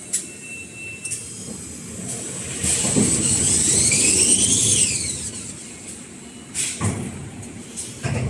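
Kitchen towel paper rewinding machine running, with a sharp click about once a second. About three seconds in, a loud hissing whine rises in pitch and then falls away over roughly two seconds, and a few louder knocks come near the end.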